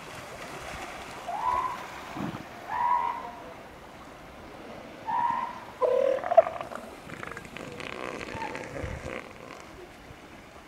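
Northern elephant seal giving several short, wavering calls, a few seconds apart, with the loudest cluster just past the middle, over a steady background hiss.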